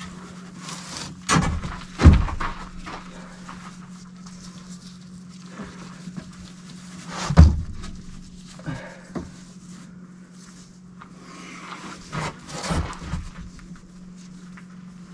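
Scattered handling noises as a wet ceramic fibre blanket is worked into a metal forge body: a few sharp knocks, the loudest about two seconds in and again past the middle, then soft rustling and shuffling near the end, all over a steady low hum.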